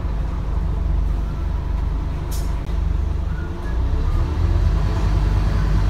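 Scania N230UD double-decker bus's diesel engine running with a steady low drone. About two seconds in there is one short, sharp hiss of air from the bus's air system.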